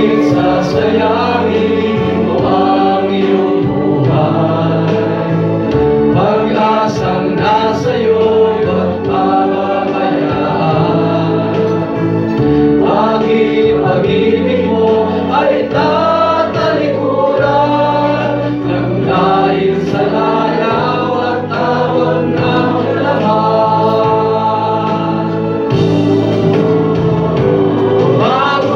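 A choir singing a gospel or Christian song over a sustained accompaniment, continuing without a break.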